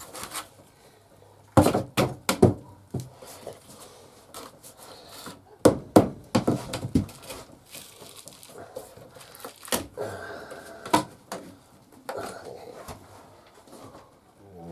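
Wooden fittings and particle board being pried and ripped out during demolition: sharp knocks, thuds and cracks in irregular bursts, the loudest near 2, 6, 10 and 11 seconds in.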